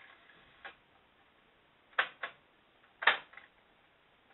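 Sharp plastic clicks from a clock radio cassette recorder's keys and cassette compartment being worked by hand: four separate clicks, the loudest about three seconds in.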